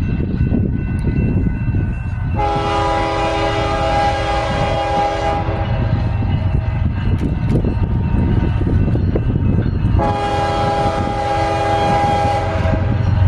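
Union Pacific coal train running by with a steady low rumble from its diesel locomotives and cars. The lead locomotive's air horn sounds two long chords, about two seconds in and again about ten seconds in.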